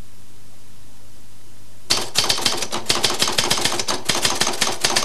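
Rapid typing on an office typewriter. Fast, uneven keystroke clicks start suddenly about two seconds in and run on without a pause, after a stretch of steady background hiss.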